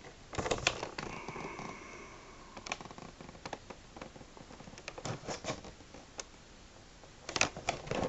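Toy packaging handled by hand: scattered light taps, rustles and clicks as the box is picked up, turned and put down, with a cluster of clicks near the end.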